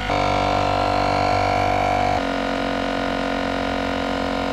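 Battery-powered portable tyre compressor running steadily with a droning hum as it inflates a motorcycle tyre toward a preset 2 bar. Its pitch shifts and it gets a little quieter about two seconds in.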